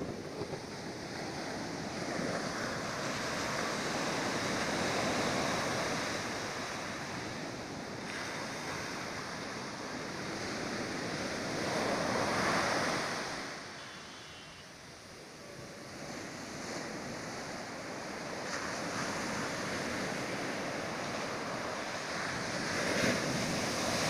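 Sea surf breaking and washing up a sandy beach, swelling and easing with each wave. It is loudest about 5 and 12 seconds in and again near the end, and briefly quieter around 15 seconds in.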